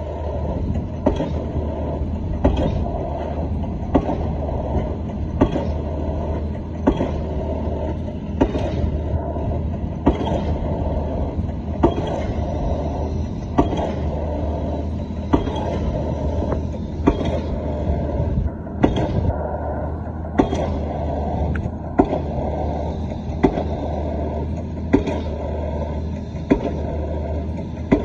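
Excavator-mounted drop hammer striking a square concrete pile, a sharp blow about every second and a half. A steady engine hum runs underneath.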